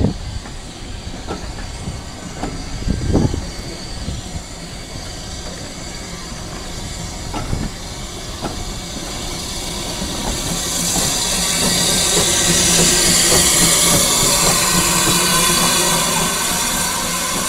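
Passenger coaches rolling slowly past behind a small industrial steam tank engine, their wheels knocking now and then over the rail joints. From about ten seconds in, the engine's steam hiss builds and is loudest as the locomotive passes close by.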